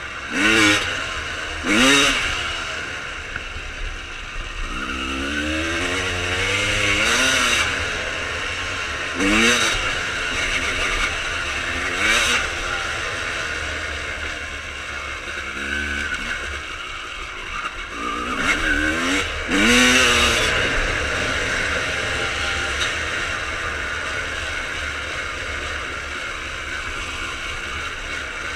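1995 Honda CR250R's single-cylinder two-stroke engine, fitted with Pro Circuit exhaust pipes, being ridden hard: the throttle is opened in short bursts every few seconds, with a longer climb around five to seven seconds in and a quick double rev near the two-thirds mark. The pitch rises sharply with each burst and falls back between them.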